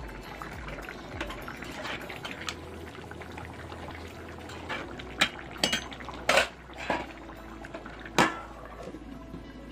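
A flat steel spatula stirring thick simmering curry in a steel kadai: a soft bubbling and scraping, with several sharp clinks of the spatula against the pan in the second half.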